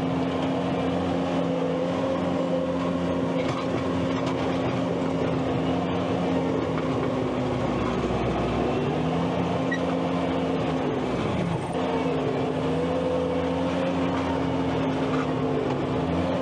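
Skid steer engine running steadily at working throttle. Its pitch sags twice, about eight and about eleven seconds in, as the engine is pulled down under load.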